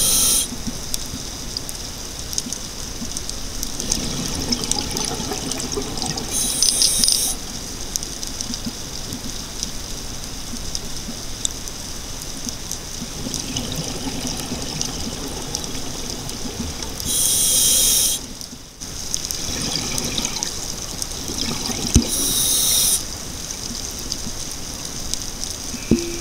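Underwater sound of a scuba diver breathing through a regulator: a steady wash of bubbling water, with a louder hissing breath four times, each about a second long.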